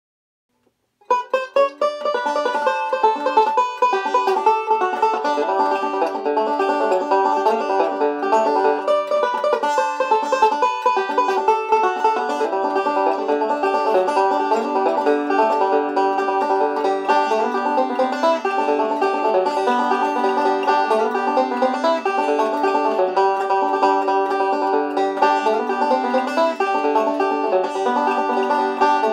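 Resonator banjo played solo, a fast bluegrass tune picked as a steady stream of quick, ringing notes. The playing starts about a second in.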